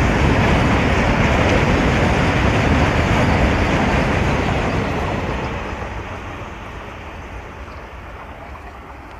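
Indian Railways BCNHL covered freight wagons rolling past at close range, a steady rumble of steel wheels on rail. After the brake van goes by about four seconds in, the sound fades steadily as the train draws away.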